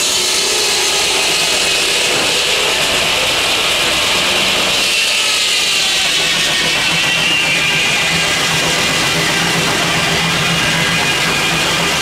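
Antique sawmill's circular saw running, belt-driven by a steam traction engine, with a high whine that slowly falls in pitch. A low steady hum joins about four seconds in.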